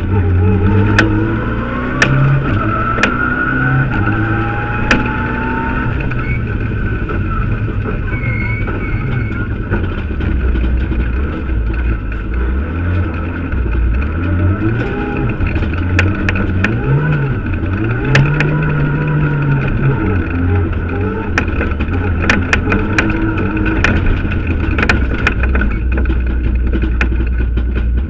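Mitsubishi Lancer Evo X rally car's turbocharged four-cylinder engine, heard from inside the cabin, revving up and down through the gears at speed. Sharp ticks and cracks are scattered through, with a quick run of them near the end.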